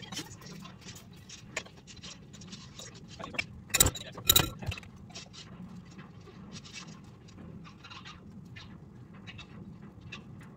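Sheets of printer paper rustling as they are handled and leafed through, with scattered light clicks and two sharp knocks about four seconds in.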